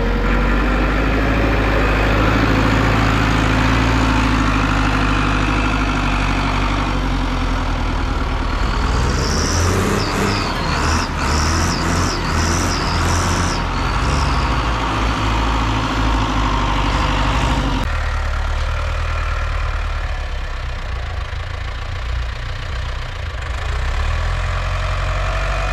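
Diesel engines of Case International tractors running under changing load as they buckrake cut grass on a silage clamp. A run of short high squeaks comes between about nine and fourteen seconds in.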